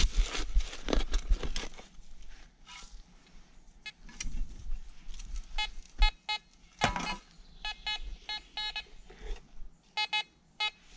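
Scraping and rustling noises, loudest in the first two seconds, then a Fisher F22 metal detector giving several quick runs of short, same-pitched beeps, signalling metal under the coil.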